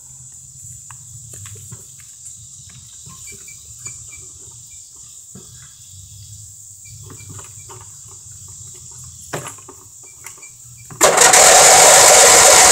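Riding mower's 12.5 hp engine cranked by its electric starter from about eleven seconds in, loud and steady, without catching: the engine is flooded and the battery is nearly dead. Before that, only faint clicks and a low hum.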